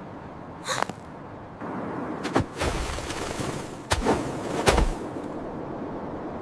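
Cartoon sound effects: four sharp thuds, the first just under a second in and the rest between about two and a half and five seconds, over a steady hiss that comes in about a second and a half in.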